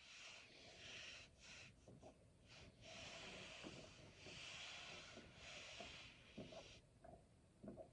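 Near silence, with faint breathing: soft hissy breaths about a second long, coming and going, then a few faint clicks near the end.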